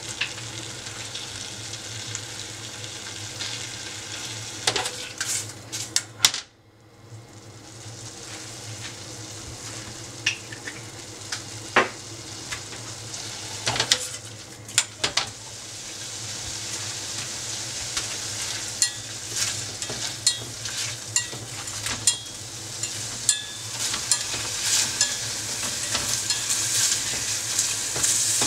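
Konjac cubes sizzling in a stainless steel saucepan as the soy-based simmering liquid boils down to a glaze, the last stage of the reduction. The pan is shaken and the pieces stirred with chopsticks, giving scattered knocks and clicks against the metal, and the sizzle grows louder toward the end.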